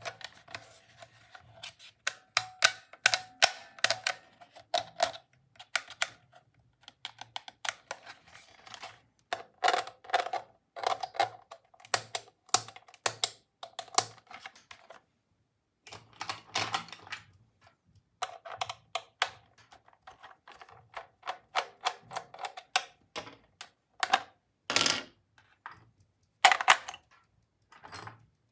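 Irregular clusters of sharp plastic clicks, taps and rattles from toy tools and their packaging being handled and unpacked, with a brief pause about halfway.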